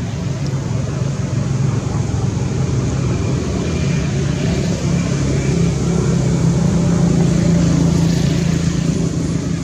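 Steady low engine hum that swells a little late on, like a motor vehicle running.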